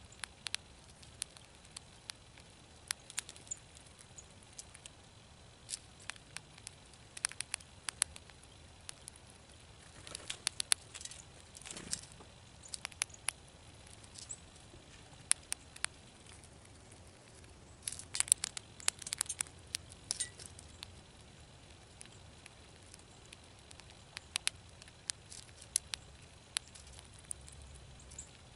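Gray squirrel eating birdseed from a tray feeder: irregular sharp clicks and crunches of seeds being cracked and shuffled in the tray, coming thickest about ten seconds in and again around eighteen to twenty seconds.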